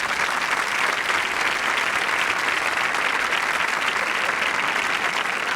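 Studio audience applauding steadily, a dense sustained clapping welcoming a performer onto the stage.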